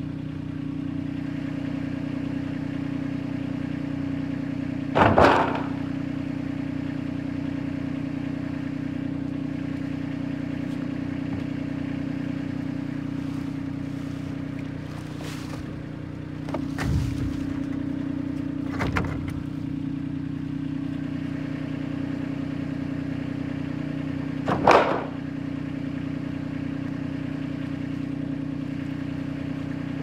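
An engine idling steadily, with four loud clattering bangs of corrugated metal roofing sheets being pulled up and moved: one about five seconds in, two in the middle, and one near the end.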